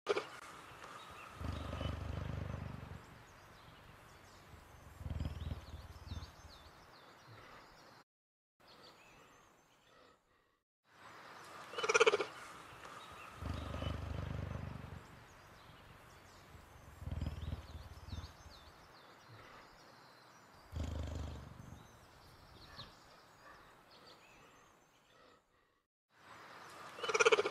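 Big-cat vocal sound effects played by Google Search's 3D AR cheetah: low, drawn-out growls that recur every few seconds. A sharper, louder call comes about midway and again at the end.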